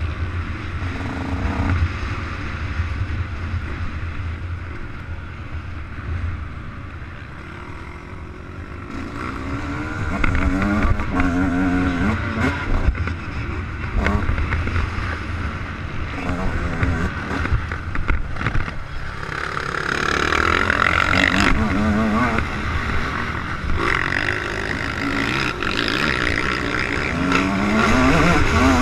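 Yamaha YZ 144 two-stroke motocross bike running hard on a dirt track, its engine note climbing again and again as it revs up through the gears, easing off for a few seconds before picking up again, with wind buffeting on the helmet-mounted camera.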